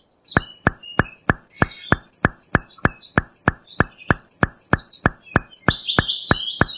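A steady series of sharp knocks, about three a second, with a faint high steady tone and a few short chirps over them.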